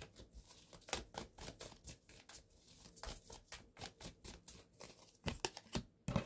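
A deck of large divination cards being shuffled by hand: a quick, irregular run of soft card slaps and flicks, a little louder near the end.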